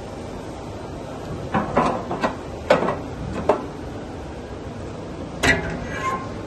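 Fully electric CNC tube bending machine working, its mechanism giving a run of sharp metallic clunks and clicks over a steady background noise, with two more knocks near the end, the last one briefly ringing.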